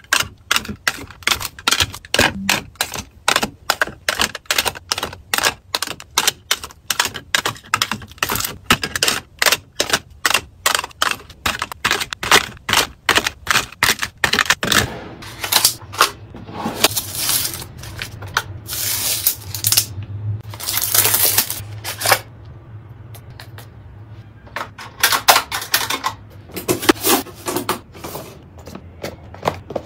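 Small household items being handled and set in place during tidying: a quick even run of sharp clicks and taps, about two to three a second, for roughly the first half, then longer rustling and scraping handling sounds with short pauses.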